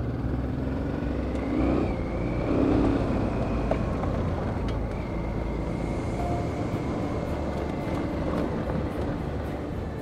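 Honda Transalp motorcycle engine running steadily at moderate revs while riding a dirt track, with a brief rise in revs about two seconds in.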